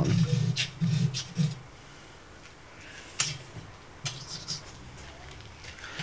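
Razor blade scraping calcium deposits, softened with vinegar, off aquarium glass: a few short, separate scrapes with pauses between them.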